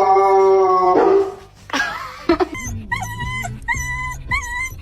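A dog vocalizing: a long held howl-like call that stops after about a second, then a run of short whining calls about every half second, with background music.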